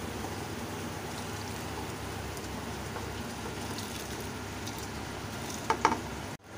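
A pot of salted water at a rolling boil, a steady bubbling hiss, ready for the soaked rice to go in. Two short knocks come near the end.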